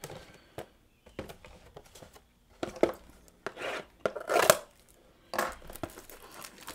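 A cardboard trading-card blaster box being opened by hand and its cellophane-wrapped packs handled: a series of taps, scrapes and crinkling rustles, the loudest about four and a half seconds in.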